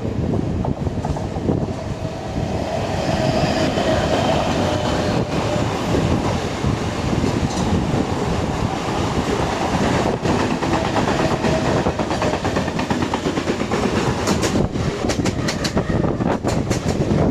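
Mumbai suburban electric local train running along the track with a continuous rumble of wheels on rail. In the last few seconds comes a quick run of sharp clicks as the wheels pass over rail joints.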